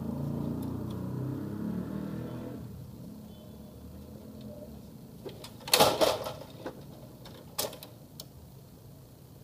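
Laser printer mechanism whirring and then winding down about two and a half seconds in, followed by a loud cluster of clicks and clacks a few seconds later and one more sharp click shortly after.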